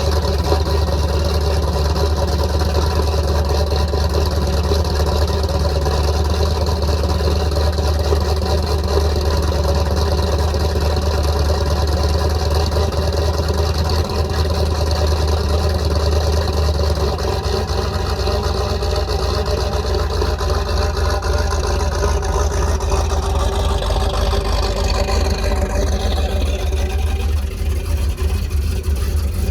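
Carbureted 334 cubic-inch small-block Chevy stroker V8 running loud and steady just after starting up; its low note shifts about halfway through. The carburetor still needs tuning, by the owner's account.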